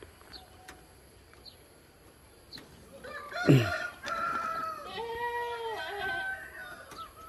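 Rooster crowing: one long crow that starts abruptly about three seconds in and runs for about three seconds.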